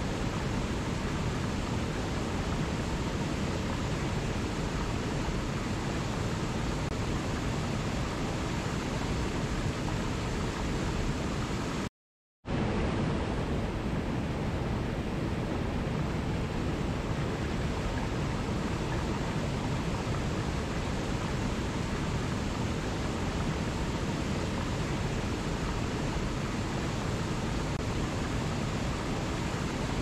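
Small waterfall pouring over rocks into a mountain stream: a steady rushing of water that cuts out to silence for about half a second about twelve seconds in.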